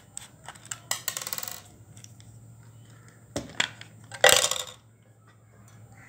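Small screwdriver backing a screw out of the plastic battery-compartment cover of a toy RC car, with light clicks and a brief rattle about a second in. A little over four seconds in comes a short, loud metallic clatter, as of the small screw dropping onto the tabletop while the plastic cover comes off.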